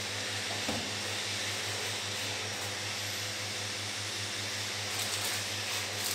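Steady mechanical hum and hiss of room machinery, with a few short faint spritzes from a hand spray bottle, mostly near the end.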